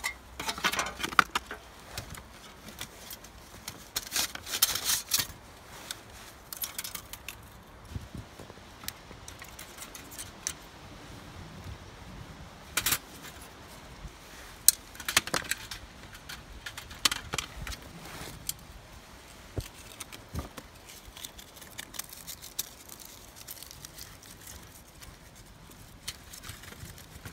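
Handling sounds from a small folding metal twig stove being set up and loaded: irregular clinks and clatters of its metal panels, with scraping, rustling and light knocks of sticks and tinder between quiet gaps.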